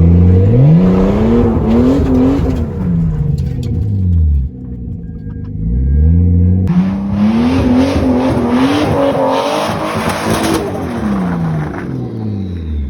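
Lexus IS200/IS300 drift car's engine revving hard in two long pulls, its pitch climbing and then falling back each time, with the noise of tyres spinning on gravel as the car skids.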